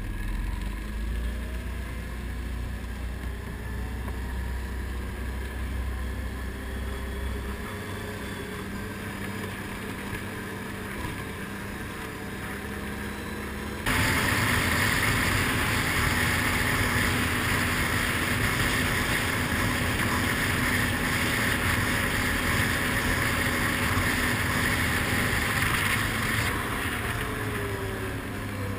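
ATV engine running steadily while the quad is ridden, with wind and tyre noise. About halfway through a loud rushing hiss suddenly sets in over the engine, easing off a couple of seconds before the end.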